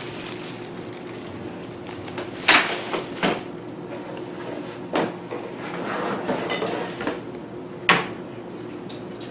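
Metal TV antenna parts clinking and knocking as they are handled, with four sharper knocks and lighter rattling between them, over a steady low hum.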